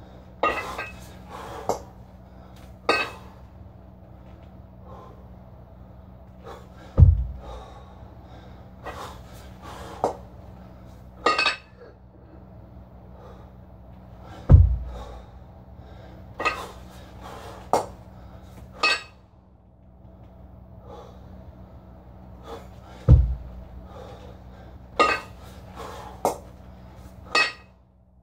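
A man breathing hard with sharp, forceful exhalations through repeated double kettlebell clean-and-press reps. A heavy low thud comes about every eight seconds, three times, from the swinging kettlebells.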